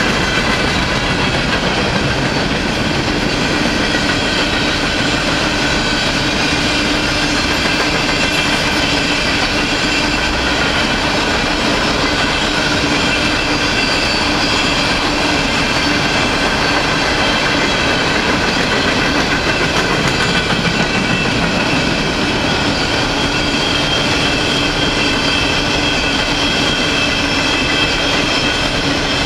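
Empty steel coal hopper cars of a freight train rolling past at a steady speed: continuous rumble and clatter of the wheels on the rails, with steady high-pitched ringing from the wheels.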